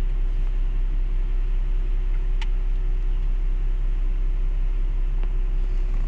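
Car engine idling, heard from inside the cabin: a steady low rumble with a constant faint hum above it. One light click about two and a half seconds in.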